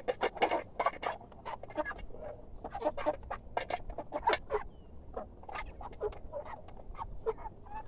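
A flock of Cornish Cross broiler chickens pecking feed from a metal trough feeder: a rapid, irregular patter of short beak taps.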